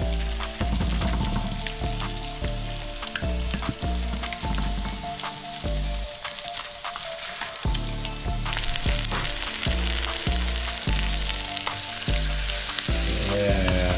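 Seasoned sheepshead fillets and onions frying in butter in a pan, a steady sizzle that grows louder about two-thirds of the way through.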